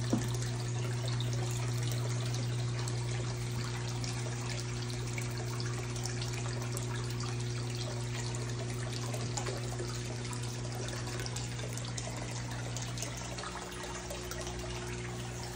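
Aquarium filter running in a turtle tank: water trickling and splashing steadily into the tank over a steady low hum from the filter motor, which weakens a little near the end.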